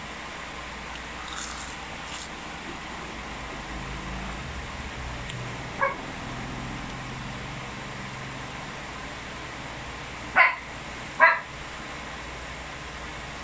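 A dog barks twice in quick succession near the end, after a single shorter, weaker yelp about halfway through, over a steady background hiss.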